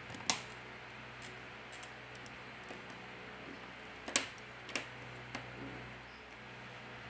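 Sharp plastic-and-metal clicks as fingertips press the cover over an Oppo A72's motherboard down onto the frame, snapping its clips into place: one just after the start, then three about half a second apart a little past halfway, with a few fainter ticks between.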